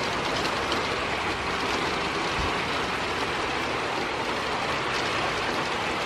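Heavy rain pouring down in a steady, even hiss, with no wind gusting.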